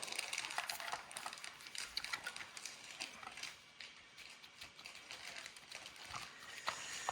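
Light, scattered clicks and rattles of handling a chainsaw's bar and chain during assembly, as the chain is fitted and the bar slid on its adjuster.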